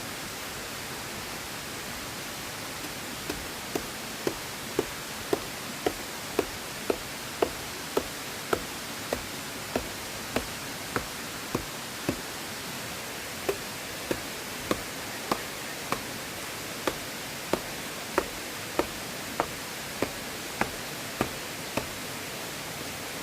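A run of short, regular knocks, a little under two a second, with a brief pause midway, over a steady rushing noise typical of a nearby river.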